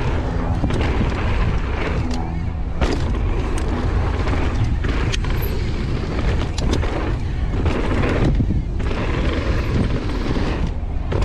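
Wind buffeting the microphone over the rolling noise of a downhill mountain bike on a dirt trail, with frequent sharp clicks and knocks from the bike rattling over bumps.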